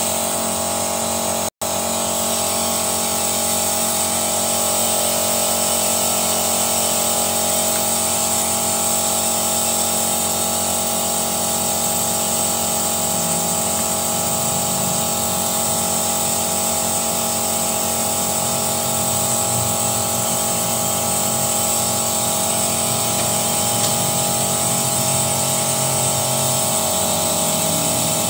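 Steady mechanical drone with a constant high whine from a vacuum carbon-cleaning rig working on a car engine, drawing the dark carbon-cleaner fluid through its canister. The sound drops out for an instant about a second and a half in.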